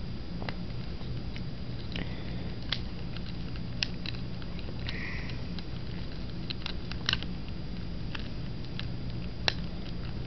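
Scattered small plastic clicks and taps from handling a Gaogamon action figure, fitting a snap-on shorts piece onto its leg, over a steady low hum.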